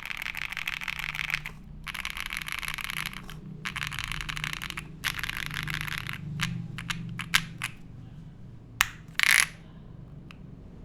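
Mechanical keyboard being typed on: a Black Diamond 75 with stock, unlubed KTT Wine Red linear switches on an FR4 plate and PBT doubleshot keycaps. Four quick runs of rapid key presses, then a few slower single keystrokes, and a sharper click followed by a louder, longer keystroke about nine seconds in.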